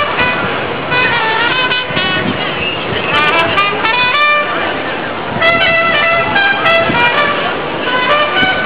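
Street din of a large group bike ride in city traffic: voices, music and horn toots mixed over traffic noise.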